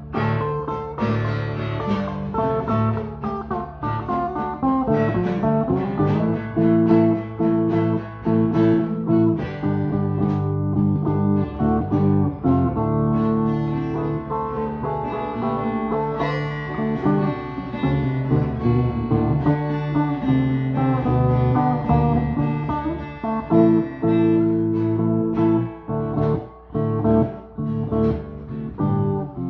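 Solid-body electric guitar played solo: picked notes and chords that ring on, with a few brief pauses between phrases.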